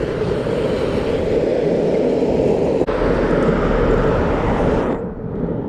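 Cruiser skateboard wheels rolling over pavement, a steady coarse rumble. The higher hiss drops away about five seconds in.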